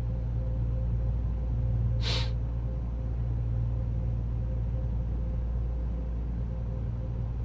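Car-wash dryer blowers running on the other side of the closed bay door: a steady low hum heard from inside the car, with a short hiss of air about two seconds in.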